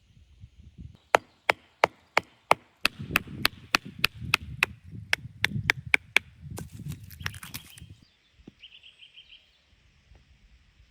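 A tool striking wood about twenty times in quick succession, the sharp knocks speeding up from about three to about five a second, followed by a short scraping hiss.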